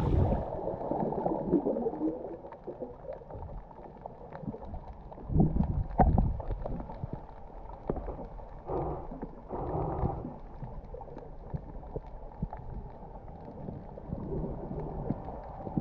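Muffled underwater sound from a camera held below the surface: irregular water swishing and gurgling with scattered clicks and knocks. Two short bubbly gushes come about nine and ten seconds in.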